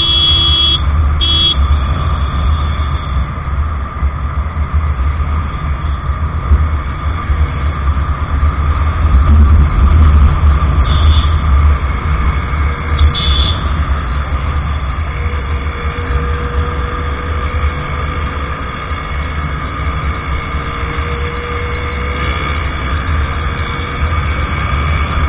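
Wind buffeting the microphone on a TVS Ntorq 125 scooter riding at speed in traffic, with the scooter's engine and road noise running steadily underneath. A horn gives two short beeps right at the start, and short high beeps come again twice around the middle.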